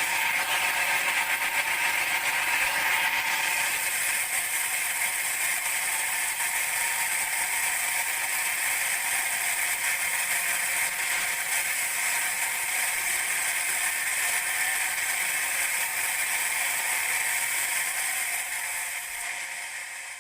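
Sawmill band saw running steadily while sawing a teak log, a constant mechanical noise that fades out near the end.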